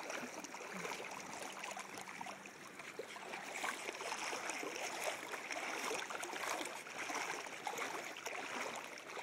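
Shallow seawater sloshing and splashing around a corgi as it wades, a continuous run of small splashes.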